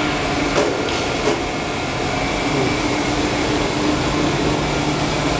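PE foam splitting machine running steadily: an even mechanical drone with a few constant hums. Two light knocks come in the first second and a half.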